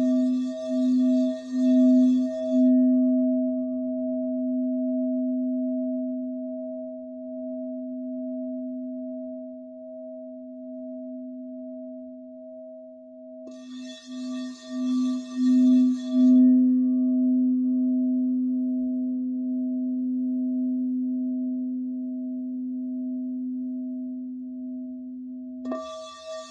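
Quartz crystal singing bowl sounding a steady low tone with a higher overtone, pulsing and swelling while the suede-covered wand is circled around its rim. The wand rubs the rim at the start, again about halfway, and near the end, each new pass opening with a light tick as it meets the rim; between passes the bowl rings on and slowly fades.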